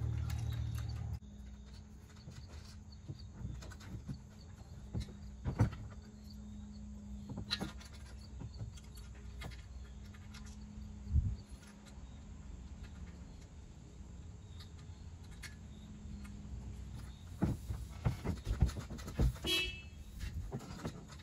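Light, scattered clicks and knocks of a metal sailboat boom and its fittings being handled, over a steady low hum and faint outdoor background. A low rumble stops about a second in, a louder knock comes about halfway through, and a cluster of clicks comes near the end.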